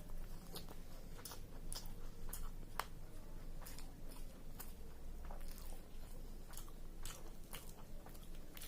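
A person chewing a mouthful of chicken biryani close to the microphone, with wet mouth clicks and smacks about twice a second.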